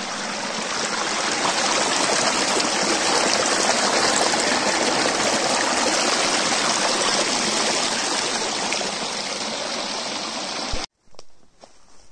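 Forest stream rushing and splashing over rocks and a small cascade, a steady loud wash of water. It cuts off abruptly near the end, leaving only faint outdoor sounds.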